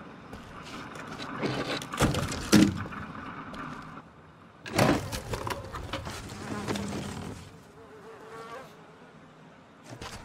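Flies buzzing in the background, broken by several sharp knocks and clatters, the loudest about two and a half seconds in and another near the five-second mark.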